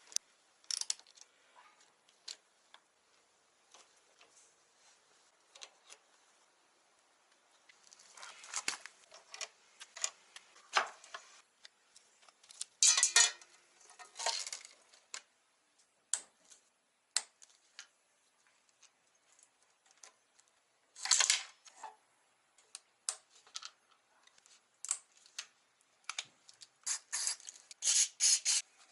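Metallic clinks, clicks and rattles of hand tools and metal parts being handled while a Kawasaki Balius motorcycle's front end is taken apart. The sounds come at irregular intervals, with several louder bursts of clattering.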